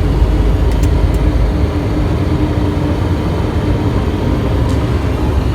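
Steady low rumble of airliner engines and airflow heard inside the cockpit, with a few faint clicks about a second in and near the end.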